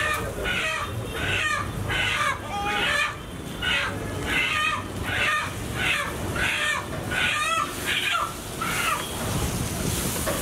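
A bird calling over and over in a steady series, about two short calls a second, stopping about nine seconds in, over a low background rumble.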